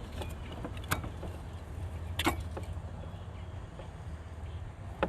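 Hands working Teflon thread tape onto a small brass bar-saver fitting for a surface cleaner bar: a few faint clicks, about one second and two seconds in, over a steady low background rumble.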